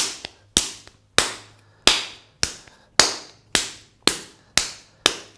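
A ball of stoneware clay slapped from hand to hand to shape it into a round ball for throwing: about ten sharp slaps, evenly spaced at a little under two a second.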